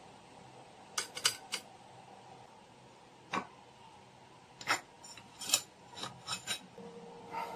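Metal kitchen tongs clicking and clinking against a ceramic bowl while food is set into it: about nine sharp, irregularly spaced clicks, several in quick succession about a second in and again around five to six and a half seconds.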